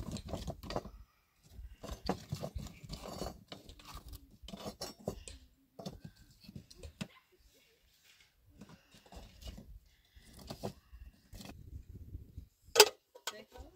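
Dry sticks being handled, snapped and laid into a clay hearth: irregular cracks, scrapes and light clatters with short pauses. Near the end, one sharp metal clank as the kettle is handled.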